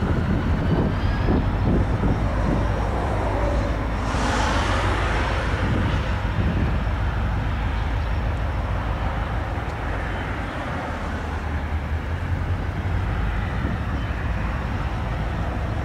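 High-hood diesel locomotives switching in a rail yard, giving a steady low engine drone. Gusts of wind hit the microphone right at the start and again about four seconds in.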